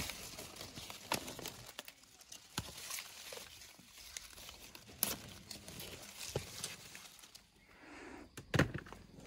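Pear-tree leaves and twigs rustling as pears are picked by hand, with scattered sharp snaps and clicks. The loudest snap comes near the end.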